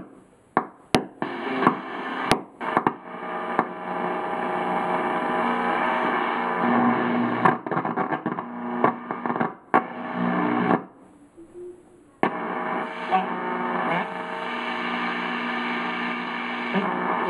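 1937 Zenith 5R216 tube radio being tuned across the AM band: crackles and static between stations, snatches of broadcast sound coming and going, and a brief quiet spell about eleven seconds in.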